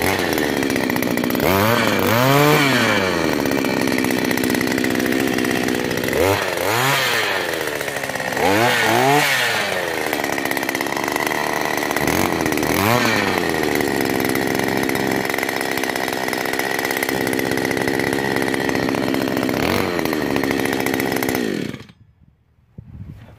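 Small two-stroke petrol engine of an earth auger running, revved up and let back down to idle several times by the throttle, then cut off suddenly near the end.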